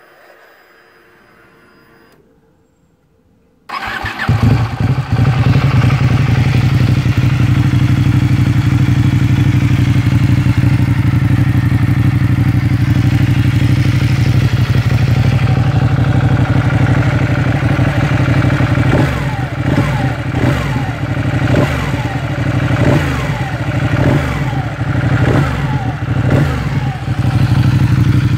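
Ducati 899 Panigale's Superquadro V-twin engine being started about four seconds in, after a short quiet spell, then idling loudly and steadily.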